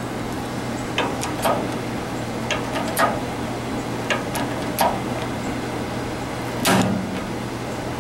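Irregular sharp metal knocks and clicks from steel parts and clamps being handled, about eight in all, the loudest near the end, over a steady low hum.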